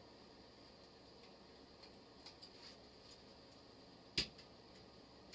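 Near-silent handling of small metal parts: a few faint clicks, then one sharp knock about four seconds in as the metal parts of a mini lathe meet while the motor unit is fitted onto the bed.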